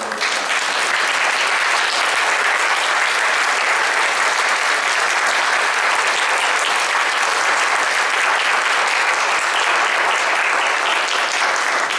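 Congregation applauding: clapping breaks out all at once and keeps up at a steady level.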